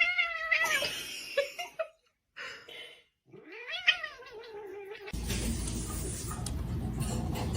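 A cat yowling: two long, drawn-out wavering meows a few seconds apart, then a steady background hum.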